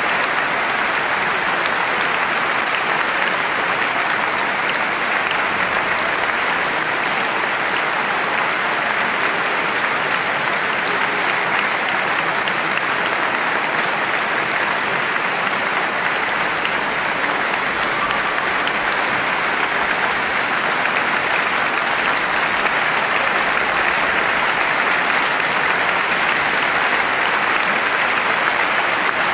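A large concert audience applauding: dense, steady clapping.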